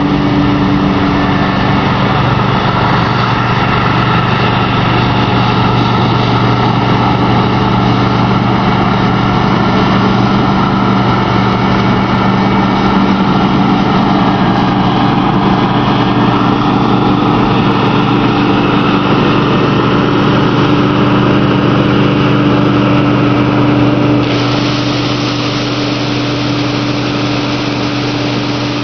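Large farm diesel engine running steadily at a constant working speed, with a steady low hum. About 24 seconds in the sound changes slightly, becoming a little quieter and hissier.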